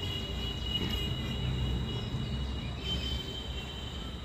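Outdoor ambience: a steady high-pitched insect drone over a low, even rumble, with a few faint chirps.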